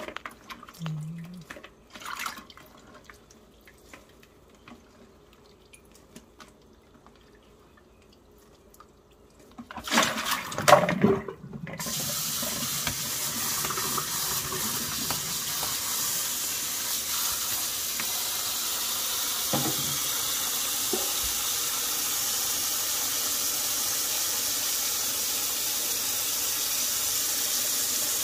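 Water running steadily from a tap into a sink, starting after a brief loud clatter about ten seconds in; the first part is quiet apart from a few light knocks.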